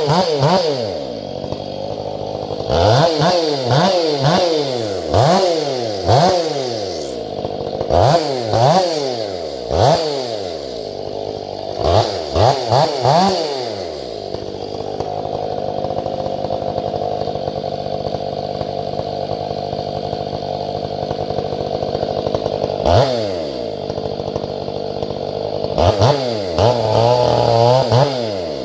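Chainsaw running a square-ground chain while bucking firewood: the engine drops off a cut, is blipped up and down on the throttle many times, then idles steadily for about ten seconds before revving up again near the end.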